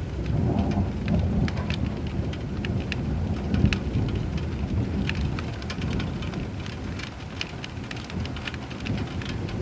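Steady rain pattering, with many small drop ticks, under a low rolling rumble of thunder. The rumble swells under a second in and eases off toward the end.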